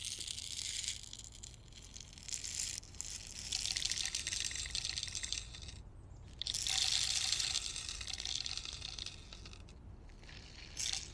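Steel BBs pouring from a container into the loading port of a Red Ryder BB gun's magazine tube, a hissing rattle that comes in several runs with brief pauses about three and six seconds in.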